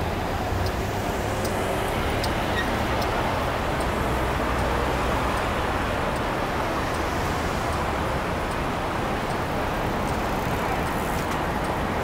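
City street traffic: cars and a bus running past, a steady wash of tyre and engine noise with a low engine rumble from vehicles close by.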